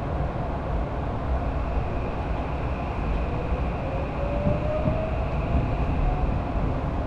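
Electric commuter train running, heard from inside a passenger car: a steady rumble of wheels and car body, with a faint whine that rises slowly in pitch over the middle seconds.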